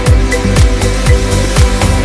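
Electronic dance music: a kick drum beating steadily about twice a second, with hi-hats and held synth and bass notes.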